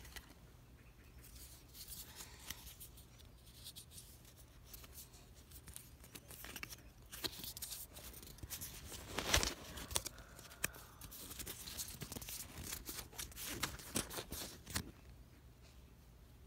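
Faint rustling, scraping and clicking as plush toys and their cardboard tags are handled close to the microphone, loudest about nine seconds in.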